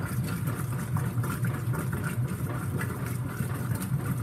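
Whirlpool direct-drive top-load washing machine agitating at slow speed: a steady hum from the motor and agitator.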